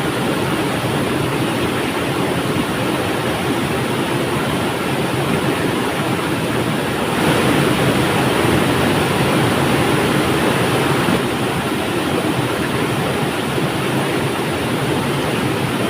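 River water flowing in a steady, dense rush that swells slightly for a few seconds around the middle.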